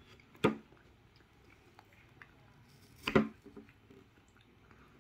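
A child eating ice cream with a plastic spoon, with spoon and mouth sounds. Two short, louder sounds come about half a second in and again around three seconds in, with faint clicks between them.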